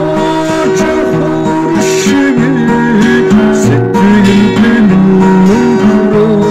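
A man singing a Mongolian song while strumming chords on an acoustic guitar fitted with a capo.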